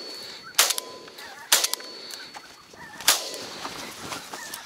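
Three shotgun shots fired at geese, the second about a second after the first and the third about a second and a half later, each a sharp report with a short echo trailing off.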